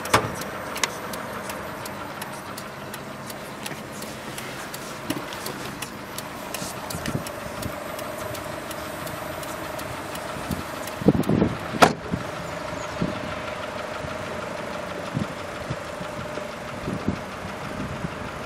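Sharp click of a Mitsubishi Lancer's bonnet release lever being pulled under the dashboard, over a steady hum. A few louder knocks follow about eleven to twelve seconds in.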